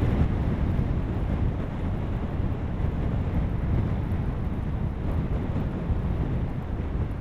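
Strong wind buffeting the microphone: a low, rumbling noise that rises and falls with the gusts.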